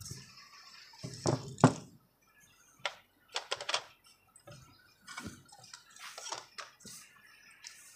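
Irregular clicks, taps and scrapes from handling a small rotary potentiometer against an amplifier circuit board and its plastic case, the sharpest knock about one and a half seconds in.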